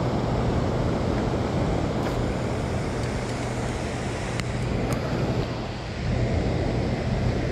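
Steady low hum of a boat motor running, under a constant wash of wind and rain noise on the microphone.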